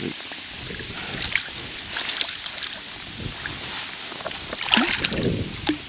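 A hooked small bream splashing at the water's surface, with water sloshing as it is netted and lifted out in a landing net. The loudest splashing and rustling comes near the end.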